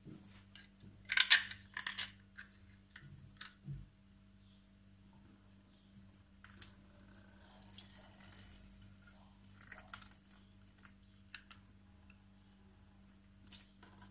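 Liquid from an opened can of sweetcorn poured off into a stainless steel sink, trickling and dripping onto the steel and glasses in the middle. About a second in there is a quick cluster of sharp clicks and clinks, the loudest sound, as the tin is handled.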